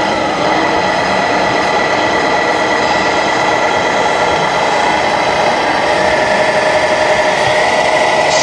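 Radio-controlled scale model truck driving: a steady mechanical whine and hum, shifting in pitch about six seconds in.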